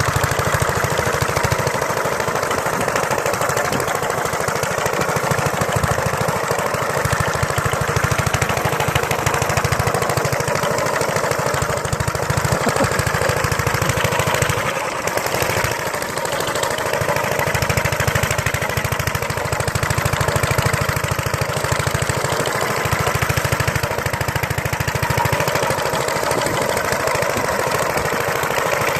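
Mayfield motor scythe's small engine running steadily, dipping briefly in level about halfway through.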